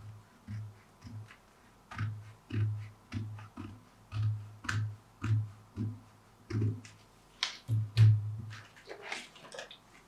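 Scissors snipping through a folded paper pattern in a run of short cuts, about two a second, each with a sharp click and a low thump. Near the end, paper rustling as the cut piece is handled.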